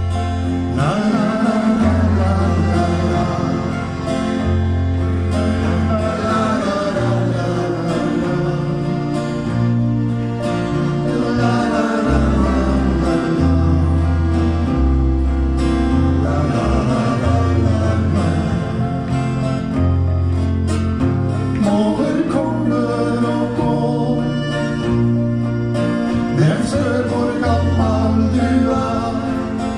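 A ukulele and an acoustic guitar strumming a country-style song together, with a man singing over them.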